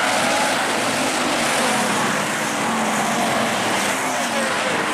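A pack of hobby stock race cars racing under power, many engines running together in a loud, steady din.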